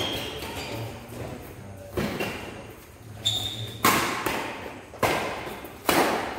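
Badminton rally: rackets striking the shuttlecock about every second, sharp cracks that echo in a large hall, the last loud one a jump smash. Short squeaks of shoes on the court mat come between the hits.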